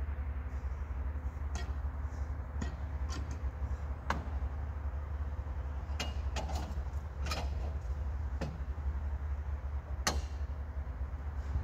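Sawn elm boards being handled on a portable bandsawmill bed: about ten irregular wooden knocks and clacks, the sharpest about 4 and 10 seconds in, over a steady low hum.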